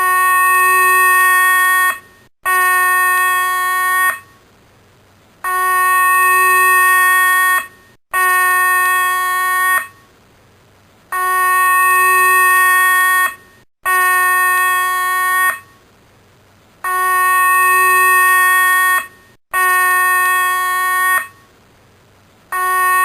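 Police alarm siren sound effect: loud blasts of one steady, buzzy tone, each about two seconds long, coming in pairs with a short break inside each pair and a longer pause between pairs. The pitch stays level rather than wailing up and down.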